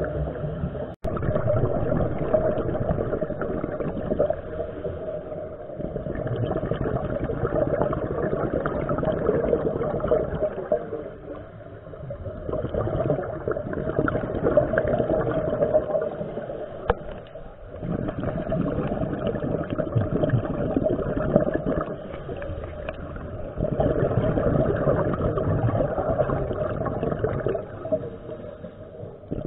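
Underwater scuba ambience heard through a camera housing: a muffled rumbling wash of regulator breathing and exhaust bubbles, swelling and easing about every five to six seconds with each breath.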